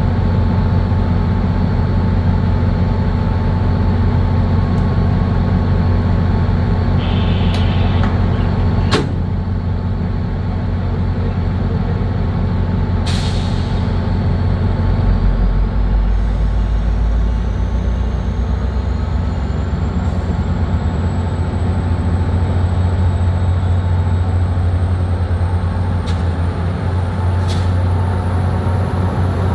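MBTA commuter rail train with its diesel locomotive running, a loud steady low rumble and hum. A short burst of air hiss comes about 13 seconds in, typical of air brakes, and from then on a faint whine slowly rises in pitch.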